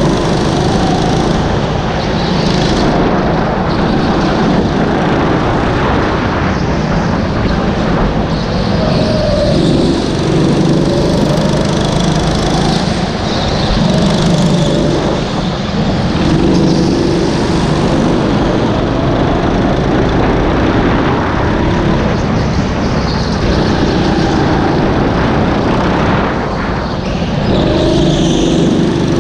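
Go-kart's small engine running hard, heard on board, its revs rising and falling as the kart drives through corners.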